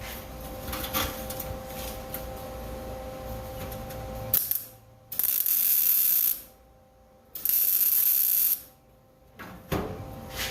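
Arc welder laying two short tack welds on sheet-metal truck floor pans, each a crackling hiss lasting about a second, with a short pause between. A sharp knock comes just before the first weld and another near the end.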